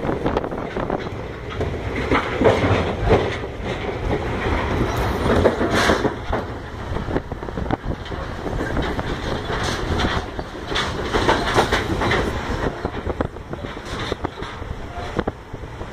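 Chepe passenger train rolling along the track, heard from inside a car. A steady low rumble of wheels on rails is broken by frequent irregular clacks and rattles.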